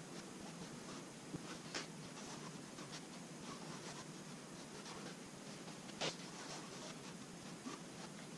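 Brush spreading varnish over the epoxy-coated inside of a cedar strip kayak hull: faint swishing of the bristles with each stroke, and a few light ticks, the sharpest about six seconds in.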